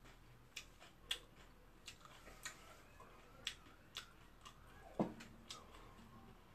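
Faint, soft clicks of a person chewing food, about one or two a second. About five seconds in, a metal spoon knocks once against a ceramic bowl with a short ring.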